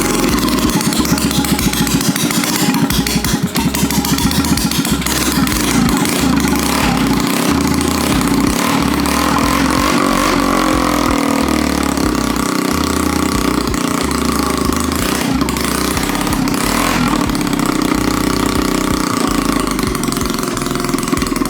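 Small engine of a home-built mini kart running with a fast firing patter, then revving up, its pitch rising about eight to ten seconds in.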